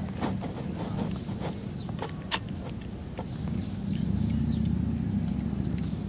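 Outdoor ambience: a steady high-pitched buzz under scattered light clicks and rustles, with a low rumble that swells about four seconds in.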